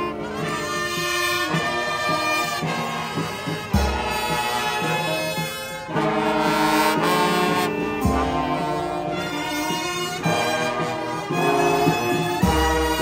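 Marching brass band playing: trombones, trumpets and saxophones sounding held notes in harmony, heard close to a trombone. A deep thump comes about every four seconds.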